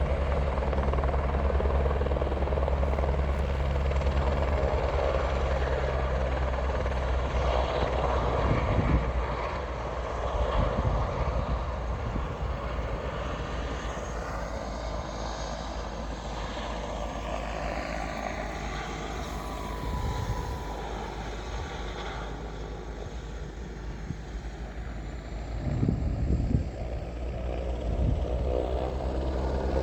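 Helicopter flying overhead, a steady low engine and rotor drone that fades through the middle and grows louder again near the end.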